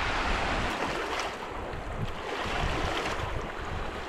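Steady rushing of wind and lake water lapping at the shore, easing off slightly toward the end.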